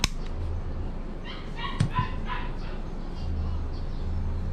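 A small dog yapping several times in the background, short high barks about a second in. Sharp plastic clicks from handling a Glock 19 airsoft pistol, one right at the start and one about two seconds in.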